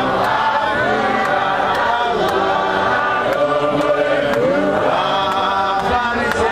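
A congregation of many voices singing a chant-like hymn a cappella, steady and unbroken, with faint regular clicks a couple of times a second keeping time.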